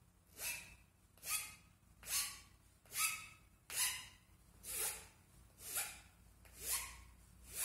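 A hand-held chisel blade shaving a thin wooden stick in repeated whittling cuts, about one a second. There are nine short scraping strokes, each rising in pitch.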